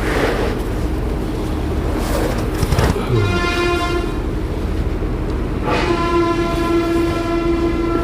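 A horn sounding two long steady blasts over a loud, steady rumble. The first blast comes about three seconds in and lasts about a second; the second, longer one starts just before six seconds in.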